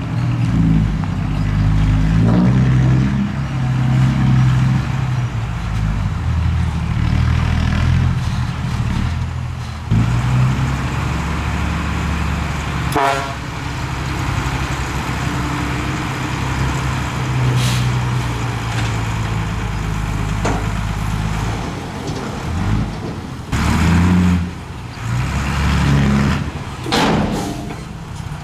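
Heavy diesel earthmoving machinery working, its engine note rising and falling with load. Several sharp metallic clanks are heard, and a short falling squeal comes about halfway through.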